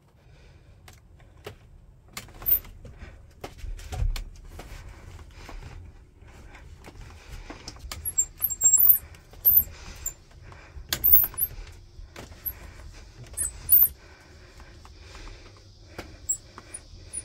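Scattered metallic clicks, clinks and rattles of a pop-up truck camper's metal roof frame and latches being handled, with the sharpest clinks coming in the second half.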